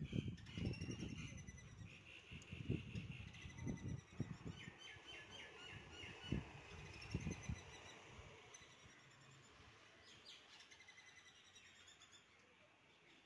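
Faint birdsong: small birds chirping in quick repeated trills. Soft rustling and a few light taps in the first half die away a little past the middle, as a hand finishes trickling rice flour onto a wooden board.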